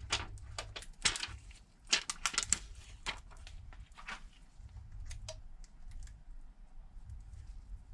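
Irregular light clicks and taps as a replacement Samsung Galaxy S8 screen and small phone parts are handled during a repair.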